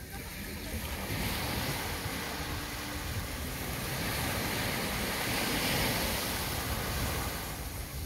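Small sea wave breaking on a sandy beach and washing up the shore: the surf hiss swells about a second in, is loudest midway, and eases off near the end.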